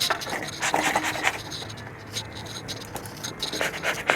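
Irregular scratching and clicking handling noises, short scrapes and knocks in quick uneven succession.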